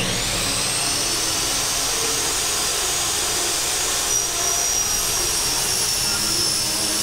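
DeWalt miter saw spinning up with a rising whine, then its blade cutting through an 80/20 aluminum extrusion. It runs loud and steady, and a higher, shriller tone joins about four seconds in.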